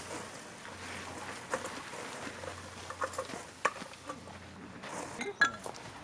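Nylon tent rainfly rustling as it is pulled over a dome tent, with light clicks and clinks throughout and a sharper knock near the end.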